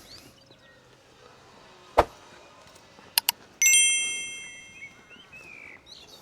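A sharp knock, then two quick clicks and a bright metallic ding that rings and fades over about a second and a half.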